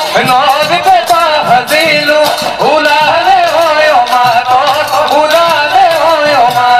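Bihu folk music: a wavering sung melody over dhol drumming and quick, rattling percussion, played continuously.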